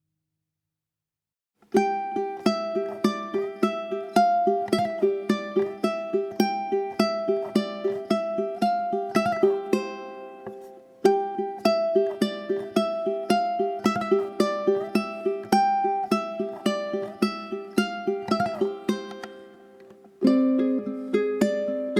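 Background music: a plucked string instrument picking a quick, repeating melody of fading notes. It starts after a couple of seconds of silence, pauses briefly about halfway, restarts, and shifts to a new phrase near the end.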